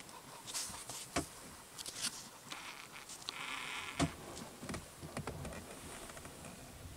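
Rustling and scattered snaps and clicks in forest undergrowth as a brown bear walks over the moss and shrubs. There is a short hiss about three and a half seconds in and a dull thud just after.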